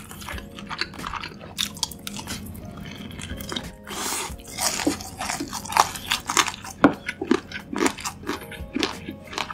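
Close-up crunching and chewing of crispy fried chicken: a quick run of crisp crackles from the battered crust, thickening toward the end.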